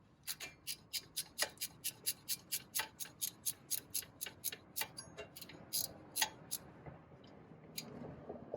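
Ratchet wrench clicking in quick even strokes, about four or five clicks a second, as a wheel hub mounting bolt is turned out; about halfway through the clicks thin to a few scattered ones.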